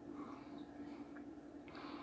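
Quiet room tone with a steady low hum, and soft scuffs and a faint click from fingers handling a small DIP chip.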